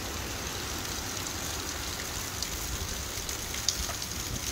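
Heavy rain of a thunderstorm pouring steadily, with a low rumble of strong wind on the microphone underneath. A few sharp ticks stand out, the loudest late on.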